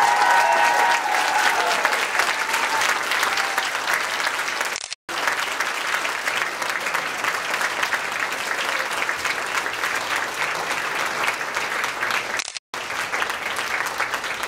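Large audience applauding steadily, a standing ovation; the sound cuts out for an instant twice.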